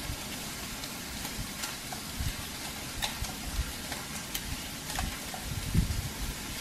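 Pork browning in a pan with a steady sizzle, with faint scrapes of a vegetable peeler taking the skin off a turnip and a few low thuds.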